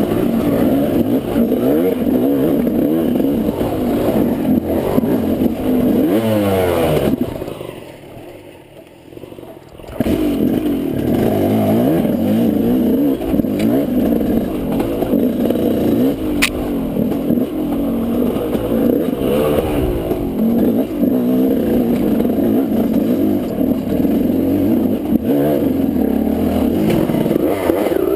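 KTM 200 two-stroke dirt bike engine revving up and down on a rough, rooty trail, with an occasional sharp knock. About seven seconds in the engine sound falls away for some three seconds, then picks up again.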